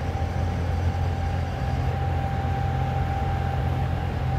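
Steady low machine hum with a thin constant tone above it, unchanging throughout.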